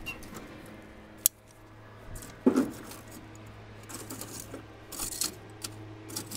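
Long-handled metal tongs clinking against the steel firebox and grate of an offset smoker as a split log is set on hot coals and pushed into place. A sharp metal click comes about a second in and a duller knock a little after two seconds, then a run of light clinks and scraping near the end.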